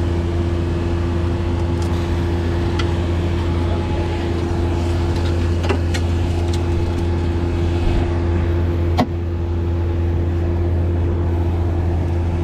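An engine runs steadily at a constant pitch, with a few light clicks and one sharp knock about nine seconds in.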